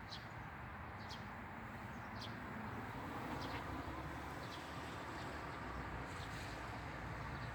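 Outdoor ambience: short, high bird chirps repeating every second or so over a steady low rumble.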